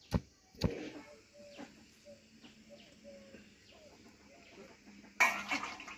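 Stone pestle (nora) striking boiled elephant apple pieces on a stone grinding slab (shil): two sharp thuds in the first second, crushing the fruit. Then it is mostly quiet with faint bird calls, and a loud brief noise comes about five seconds in.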